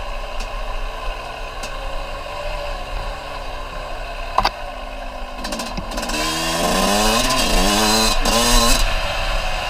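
Small off-road vehicle engine idling, with a sharp click about four and a half seconds in, then revved up and down several times from about six seconds in before settling back.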